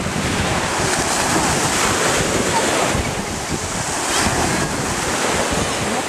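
Sea waves washing and splashing in shallow surf, with wind buffeting the microphone in a steady, gusting rumble.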